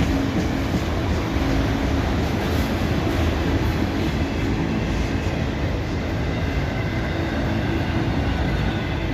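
Freight cars rolling past, a mixed train of auto racks and manifest cars: a steady rumble and clatter of steel wheels on the rails.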